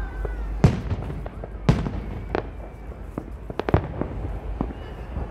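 Aerial fireworks exploding: two big booms about a second apart near the start, followed by a scatter of smaller, sharper cracks and pops.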